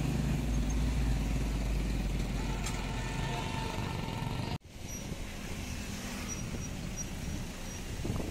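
Motorcycle and truck engines running as they pass on a wet road. About halfway through the sound cuts off sharply, then goes on as a quieter, steady, even noise with no engines prominent.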